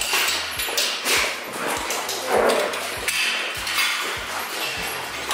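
Excited dogs jumping against wire kennel pens, the metal panels and gate rattling and clanking in quick irregular knocks, with a few short barks mixed in.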